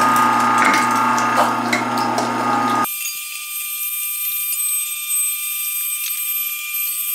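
Electric meat grinder running steadily while venison is pushed through it, a motor hum with light clicks from the meat and stomper. About three seconds in the deep hum drops out abruptly, leaving only a thin high whine.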